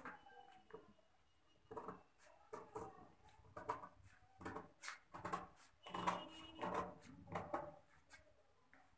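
Tailoring scissors snipping through stiff paper in a run of short, irregular cuts, with the paper rustling as it is handled, starting about two seconds in.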